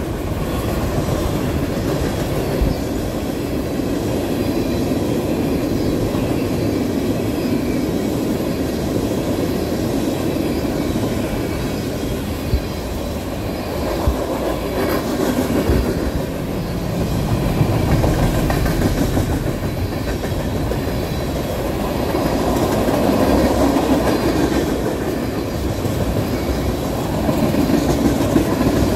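Freight train's tank cars, hoppers and gondolas rolling past close by: a steady rumble of steel wheels on rail, swelling and easing as the cars go by, with a few sharp clicks about halfway through.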